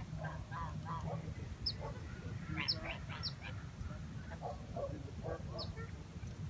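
Waterfowl calling off and on, with several short, high, falling chirps from a small bird, over a steady low rumble.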